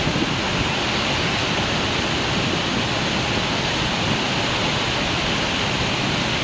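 Heavy floodwater pouring down in a steady, unbroken rush: a monsoon overflow torrent.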